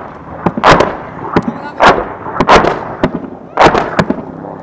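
Gunfire close by: a string of about eight sharp, loud shots at uneven spacing, the loudest about a second and two and a half seconds in, over a low steady drone.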